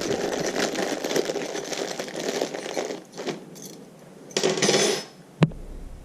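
Small metal screwdriver bits rattling and clinking as they are handled, with a second burst of rattling and a single sharp click near the end.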